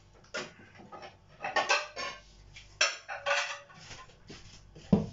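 Plates clinking and clattering against each other as they are taken out of a kitchen cupboard, with several short rattles, then a low thump near the end.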